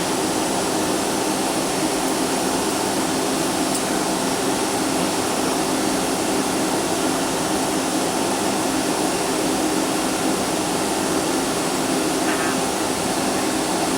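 Steady cabin drone of a Boeing 757-200's jet engines and airflow, heard from inside the passenger cabin, holding an even level throughout.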